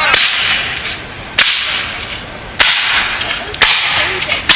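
A volley of black-powder musket shots firing blanks: five loud cracks about a second apart, each dying away over about a second.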